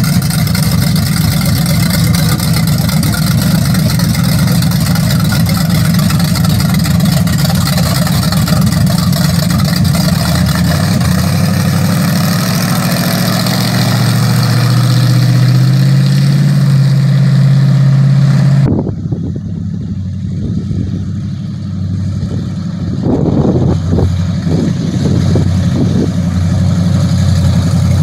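GM ZZ454 big-block V8 in a 1950 Chevy 3100 pickup running loud as the truck pulls out and drives off on its first drive. The engine note rises shortly before it drops off sharply about two-thirds of the way in. It grows louder again near the end as the truck comes back.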